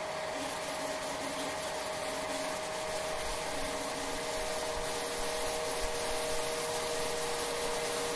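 CNC router spindle running at a steady whine while its small end mill cuts into a block of layered plywood. A hissing, scraping cutting noise comes in about half a second in and carries on under the whine.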